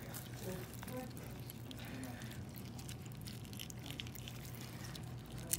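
Faint, soft wet handling sounds of gloved hands pulling apart the cut-open gill area of a fish, over a steady low hum.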